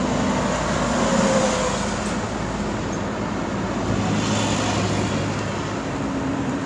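Steady street ambience of road traffic, an even background rumble and hiss with no distinct events.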